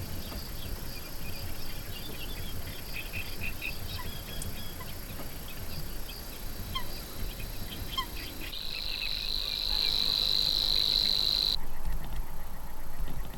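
Insects chirping steadily at a high pitch, with a louder continuous insect buzz that comes in about eight seconds in and cuts off abruptly some three seconds later.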